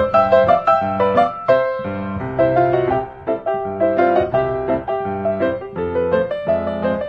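Background piano music, notes and chords played at an even pace.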